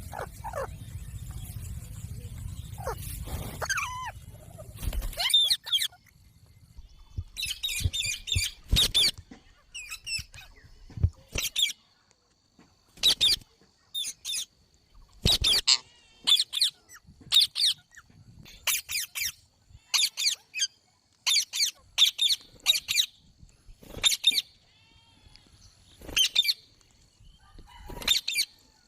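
Green ringneck parrot giving a series of short, sharp, shrill screeching calls, roughly one a second, some in quick pairs. A steady low rumble fills the first five seconds, with a few fainter gliding calls over it.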